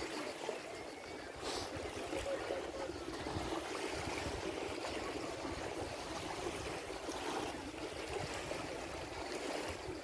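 Small waves of the Adriatic Sea lapping and washing on a sandy shore, a steady wash of water.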